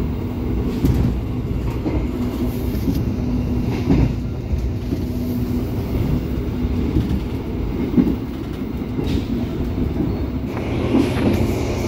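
Moving passenger train heard from inside the coach: a steady low rumble of the wheels running on the rails, with a few short knocks about one, four and eight seconds in.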